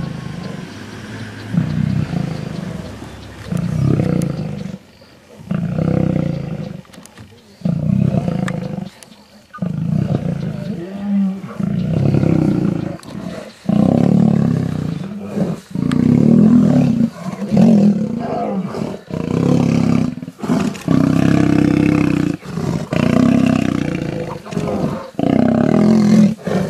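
Male lions growling and roaring in a fight, a long run of short, harsh, loud calls with brief breaks between them.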